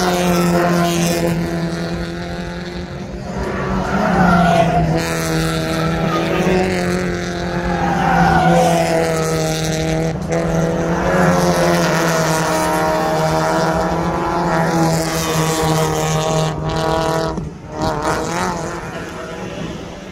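Several Mazda MX-5 Miata race cars running hard past the trackside, their engine notes rising and falling again and again as they accelerate, lift and change gear, one car overlapping the next.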